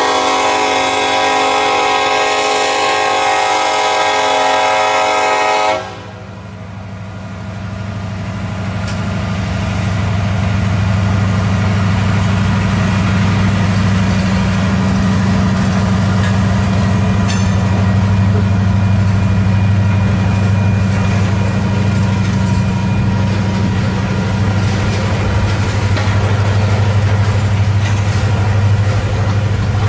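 Diesel freight locomotive's air horn sounding one long, steady chord that cuts off about six seconds in, followed by the low, steady rumble of the locomotives and train rolling past, which builds over a few seconds and then holds.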